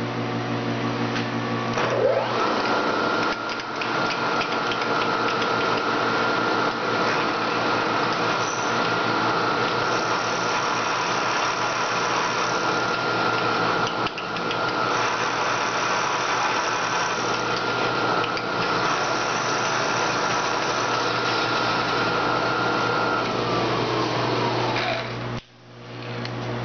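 Vertical milling machine running, its end mill cutting across the flat face of an aluminium block with a steady hiss over the machine's hum. About two seconds in, a whine rises and holds through the cut, then falls away near the end as the sound briefly drops out.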